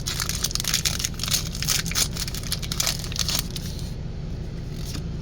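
Foil Pokémon booster pack wrapper being torn open and crinkled, a dense crackling that stops about three and a half seconds in, over a steady low hum.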